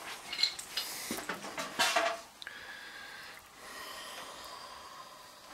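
Rustling, scuffing and light knocks of a handheld camera being carried and moved about for the first two seconds or so, then a faint steady hiss.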